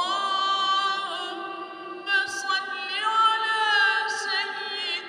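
A man's voice chanting the Arabic Friday prayer recitation, in long, high held notes that slowly bend and turn.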